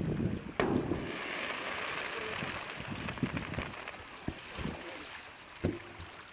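Fireworks: a sharp bang about half a second in, followed by a few seconds of crackling hiss, with more pops near the end.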